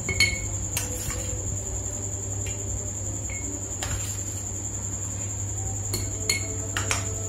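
A steel spoon clinking and scraping against a steel plate and a plastic jar as pickle is scooped into the jar: about a dozen short, sharp clinks, the loudest near the start and about six seconds in, some with a brief metallic ring. Under them runs a steady high-pitched trill and a low hum.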